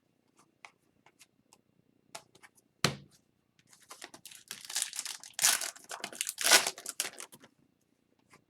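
A trading card pack wrapper being torn open and crumpled. There are a few light clicks, then a sharp knock a little under three seconds in, then about three seconds of dense crinkling and tearing.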